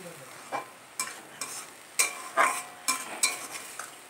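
A spatula stirring pointed gourds in masala in a kadai, knocking and scraping against the pan about every half second, some strikes ringing briefly, over a faint sizzle.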